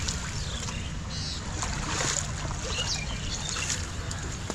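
Wind rumbling on the microphone at the edge of a pond, with light splashing of water against the brick steps.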